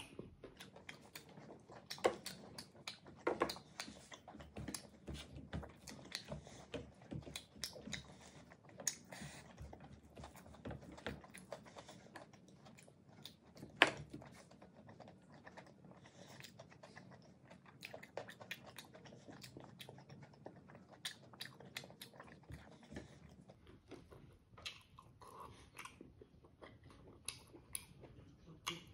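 A person chewing and biting mouthfuls of boiled smoked pork, innards and rice, with wet mouth sounds and irregular sharp clicks and crunches; the loudest click comes about fourteen seconds in.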